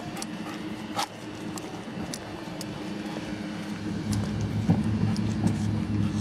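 A steady low engine hum, growing louder about four seconds in, with scattered light clicks over it.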